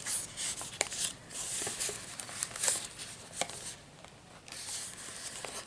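Paper and cardstock rustling and scraping, with a few sharp clicks, as fingers work at an insert that is stuck inside a paper pocket.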